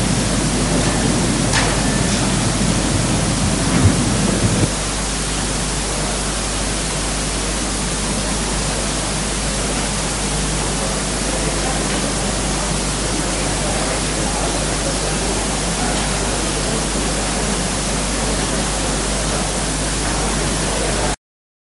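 Loud, steady hiss of recording noise at every pitch, with a low hum underneath. A low room murmur under the hiss drops away about four and a half seconds in, and the sound cuts off abruptly near the end.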